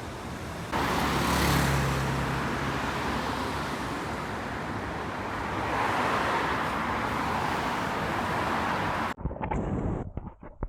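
Road traffic on a city street: a vehicle passes with a low engine hum about a second in, and tyre and engine noise swells again around six seconds. Near the end the sound cuts abruptly to quieter, patchy noise.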